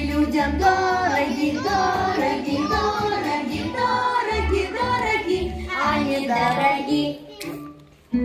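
Children singing a song over a recorded backing track with a bass line; the singing and music fall away near the end.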